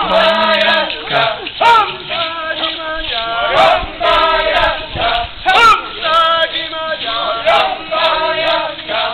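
Stomp dance singing: a group of men's and women's voices chanting short, repeated phrases, in the call-and-response of a leader and the dancers following.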